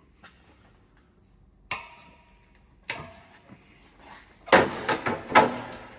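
Breaker bar and spanner cracking a tight exhaust NOx sensor loose from its thread: two sharp metallic clicks, then a quick run of loud clacks and knocks about four and a half seconds in as the sensor breaks free and the tool rattles.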